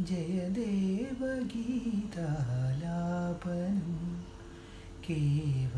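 A man singing a slow Malayalam song in a low voice, gliding between long held notes, with a short pause about four seconds in.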